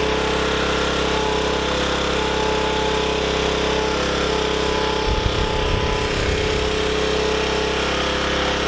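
Small portable generator engine running steadily at no load, with an even, unchanging pitch. A brief low rumble comes in about five seconds in.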